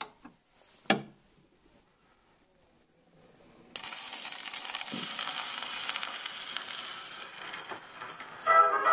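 Two light clicks, then about four seconds in the needle of an EMG acoustic gramophone meets a spinning 78 rpm record, and loud surface hiss and crackle start from the lead-in groove. Near the end the jazz band's music begins, with brass.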